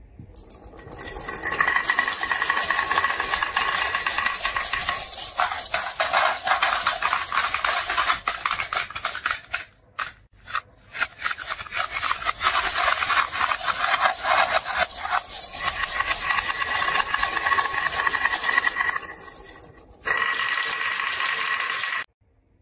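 Marbles rolling and clattering down a marble run track, a dense continuous rattle. It breaks off briefly about ten seconds in and stops abruptly near the end.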